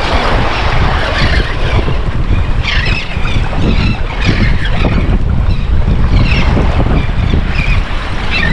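Wind buffeting the microphone in a steady low rumble, over the wash of waves and moving water.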